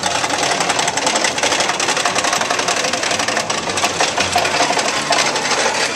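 Rapid, dense mechanical clattering, like a machine running, made of many quick clicks over a steady noisy background.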